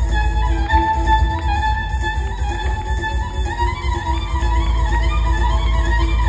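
Violin playing an ornamented folk melody with slides between notes, over a steady bass accompaniment.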